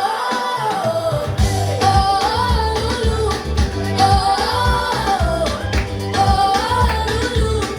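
Upbeat music with a steady drum beat and bass under a sung melody line that rises and falls in a phrase repeating about every two seconds.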